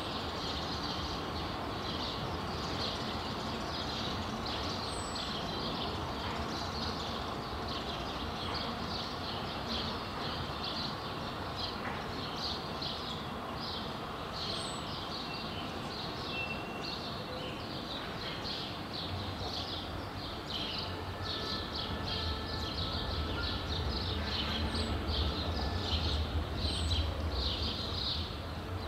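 Street ambience with birds chirping busily throughout. About two-thirds of the way in, a vehicle's low rumble comes in and grows louder toward the end.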